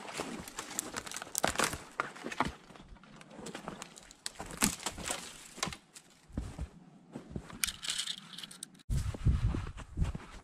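Footsteps in crusted snow with conifer branches and twigs scraping and snapping against clothing: a dense run of irregular crackles and snaps. Near the end the sound changes abruptly to a low rumble.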